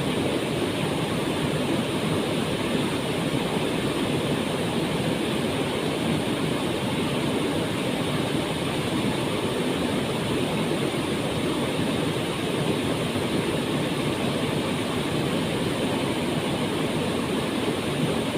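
We'e Kacura waterfall pouring, a steady, unbroken rush of falling water.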